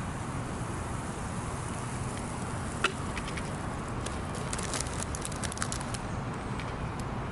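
Campfire crackling: a single sharp pop about three seconds in, then a quick cluster of crackles and pops a little over a second later, over a steady outdoor hiss.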